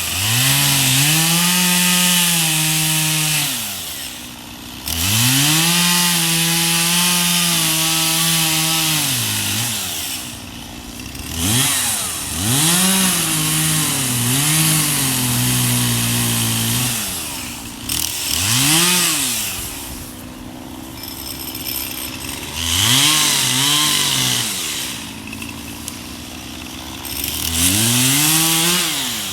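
Two-stroke chainsaw repeatedly revved from idle to full throttle and back, about six times. Each high-speed run lasts one to four seconds, and the pitch wavers at speed, as in cutting wood.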